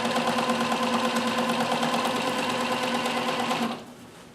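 Bernina 610 sewing machine running fast while sewing a satin stitch: a steady motor hum with rapid, even needle ticking. It stops abruptly near the end.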